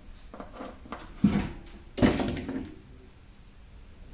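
Light clatter and knocks of small objects being handled on a work surface, with a thump just after one second and a sharper, louder knock about two seconds in.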